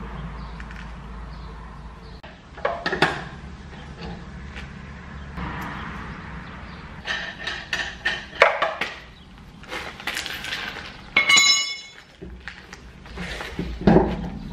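Steel lug nuts being spun off a pickup's rear wheel and set down clinking on a concrete floor, with scattered short metal knocks and clinks. About eleven seconds in comes a brief, clear metallic ring.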